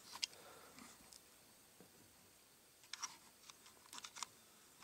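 Near silence with a handful of faint, sharp clicks and taps as a rubber recoil pad is handled against a wooden rifle stock, several coming close together about three to four seconds in.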